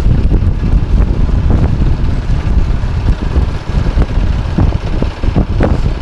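Strong wind buffeting the phone's microphone in heavy, uneven gusts, over the running Branco 6.5 hp longtail boat motor.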